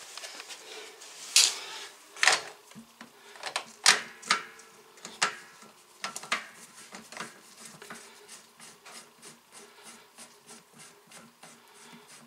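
Plastic clicking and knocking as a PVC union coupling nut is threaded on and tightened by hand. A few loud sharp clicks come in the first half, then a quicker run of fainter ticks at about three a second.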